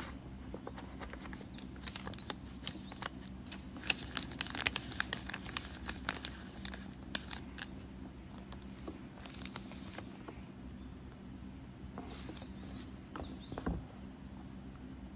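Paper drawings and the plastic sleeves of a display folder being handled: a run of crinkles and small clicks, busiest in the first half and again briefly near the end, over a low steady hum.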